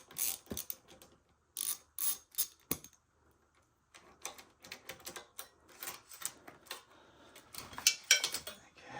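Irregular metallic clicks and clatter of hand tools and parts as a brake caliper is unbolted from an electric dirt bike. There is a short pause about three seconds in, and the clicking gets busier and louder near the end.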